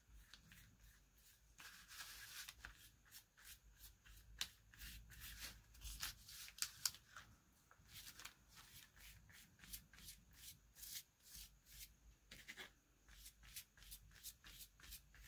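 Faint, irregular scratchy strokes of a paintbrush working decoupage glue over collage paper, with the paper rustling under the hands.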